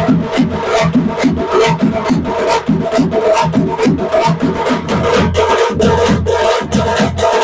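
Music with a fast, steady drum beat, about four or five strokes a second, over steady held tones.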